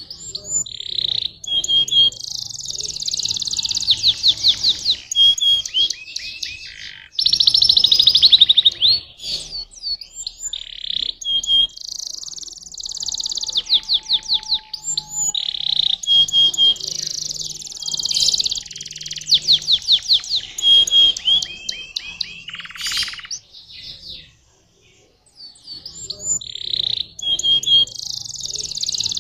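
Domestic canary singing a long, high-pitched song of rapid trills and repeated notes, breaking off briefly about 24 seconds in before starting up again.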